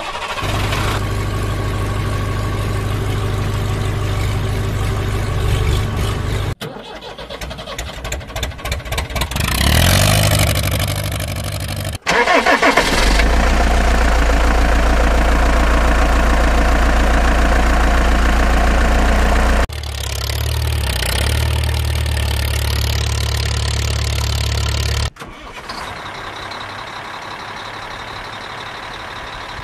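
Engine sound effects of a running, idling vehicle, cutting abruptly from one engine recording to another several times, with a stretch of revving about a third of the way in.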